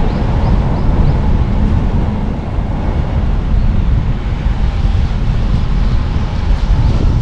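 Car driving along a road: steady low rumble of engine and tyres, with wind noise over it.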